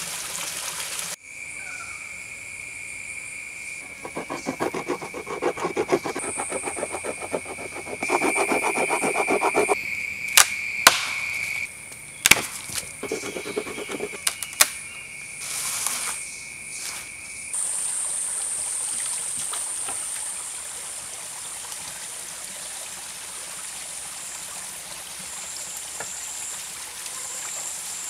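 A small forest stream trickles over rocks, then a stone tool works wood in runs of rapid strikes and a few sharp knocks over a steady high-pitched tone. Past the middle the strikes stop and the stream's trickle returns, steady, to the end.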